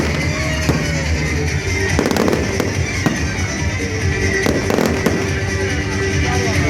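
Fireworks going off repeatedly, a sharp bang every second or so, over loud music.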